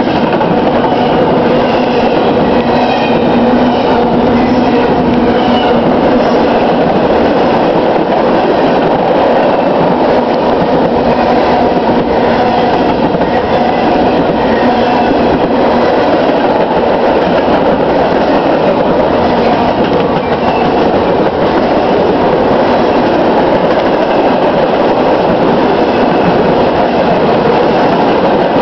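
BNSF freight train's tank cars rolling past at speed: a steady, loud rumble and rattle of steel wheels on rail, with faint high wheel squeals now and then.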